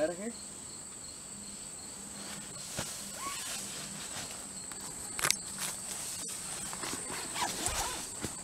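Steady high-pitched insect chorus in the woods, with scattered clicks and rustles of movement on leaf litter; the sharpest clicks come a little past halfway.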